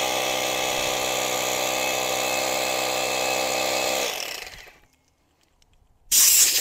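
Hammer drill boring an anchor hole into a poured concrete foundation wall: a loud, steady pitched drone that winds down and stops about four seconds in. About six seconds in, a loud burst of air hiss starts, blowing the concrete dust out of the drilled hole.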